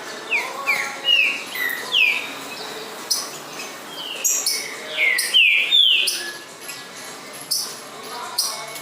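Coleiro-baiano (yellow-bellied seedeater) singing: a quick string of downward-slurred whistled notes mixed with short, high, sharp notes. The song is loudest about two-thirds of the way through.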